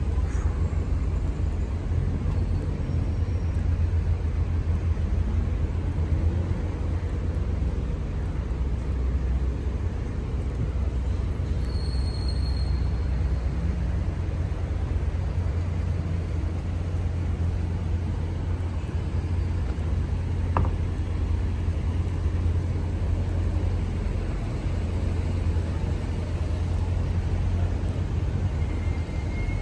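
Steady low rumble of city road traffic, with cars moving and idling along a busy street. A few faint short high tones come in about twelve seconds in and near the end.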